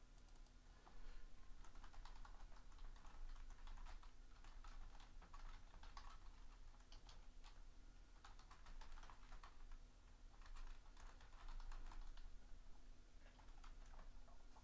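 Typing on a computer keyboard: quick irregular key clicks, with a short pause about ten seconds in, over a faint steady hum.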